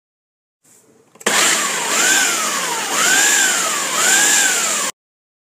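Ninja Professional 1500-watt blender motor running a food-processor bowl, chopping a vegetable mixture. Its whine swells up and sags in pitch about once a second, then cuts off suddenly.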